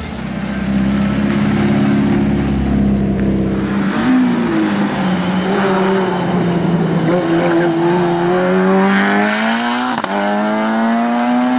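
A car engine runs at a fairly steady pitch for about four seconds. Then a Subaru Impreza time-attack car's flat-four engine is heard under hard acceleration on track, its pitch climbing steadily and dropping sharply at a gear change about ten seconds in before climbing again.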